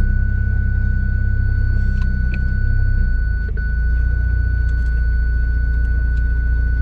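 BMW E38 750iL's V12 engine idling, a steady low hum, whose tone shifts about three seconds in. A thin, steady high whine runs under it.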